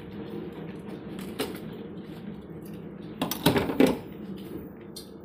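Metal diesel pump nozzle clattering against the truck's fuel tank filler neck as it is pushed in. A burst of clinks and knocks comes about three and a half seconds in, over a steady low hum.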